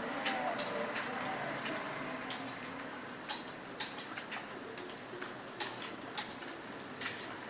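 Computer keyboard keys clicking at an irregular pace as someone types, over a steady background hum.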